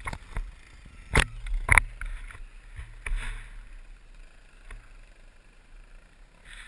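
Husaberg 650 snow bike's single-cylinder four-stroke engine idling low, with two sharp knocks about a second in and half a second apart as the bike and its mounted camera jolt and tip forward.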